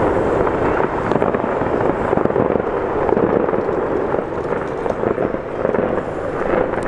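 Fireworks going off: a dense, continuous crackle of many small pops.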